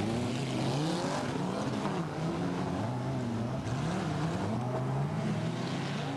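Several autocross race cars' engines revving hard as a pack accelerates through a loose-surface corner, their pitch climbing and dropping again and again with the gear changes.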